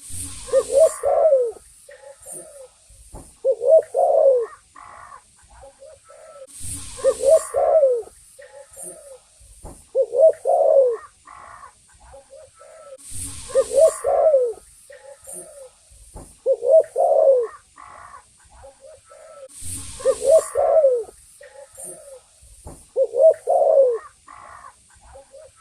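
Spotted dove (tekukur) cooing its song over and over, one phrase about every three seconds. A brief rush of noise comes about every six and a half seconds.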